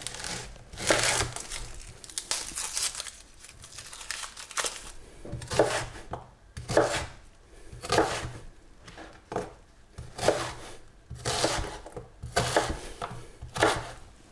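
Kitchen knife cutting an onion on a chopping board: separate chopping strokes, roughly one a second.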